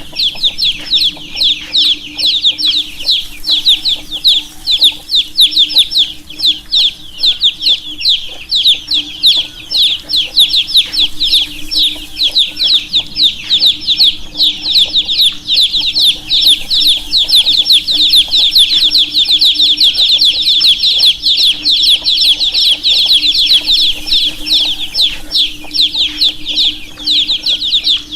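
A group of baby chicks peeping constantly, many short high chirps overlapping in a dense stream, with a faint low hum beneath.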